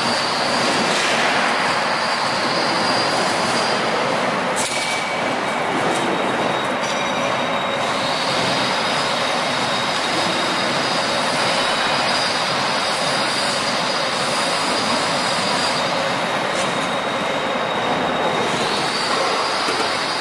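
Steady factory machinery noise, a dense hiss-like din with a high steady whine that shifts pitch a few times, and one sharp knock about five seconds in.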